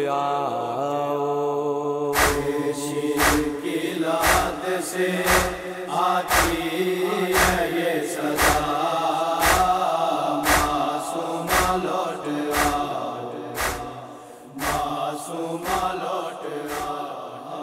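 Wordless chanted drone of voices held under an even beat of chest-beating (matam) thumps, about one a second, the backing of a noha lament. The level falls away near the end.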